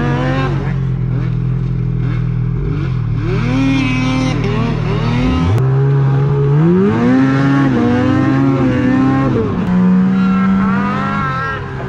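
Snowmobile engine revving up and down as the sled is ridden over snow, heard from on board the sled, with a steep climb in revs about five seconds in.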